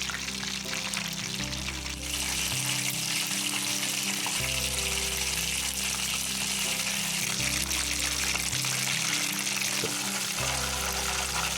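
Batter-coated chicken lollipops deep-frying in hot oil, a steady sizzle that grows louder about two seconds in.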